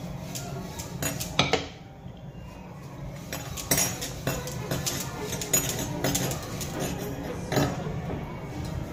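Wooden rolling pin rolling out soft semolina roti dough on a granite countertop, with irregular sharp knocks and clacks as the pin meets the stone.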